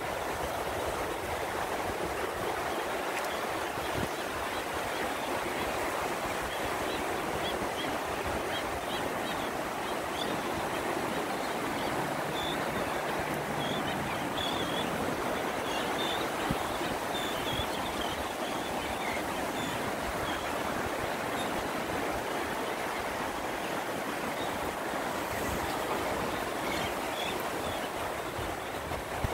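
Steady wash of surf, an even rushing noise with faint high chirps dotted through it.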